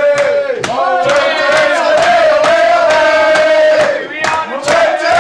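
A group of people chanting loudly in unison, holding long drawn-out notes, with sharp hits in between.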